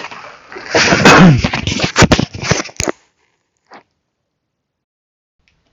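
Loud rustling, scraping and knocking right against a microphone, as it is handled while being set up. It cuts off suddenly about three seconds in, with one faint short rustle a moment later.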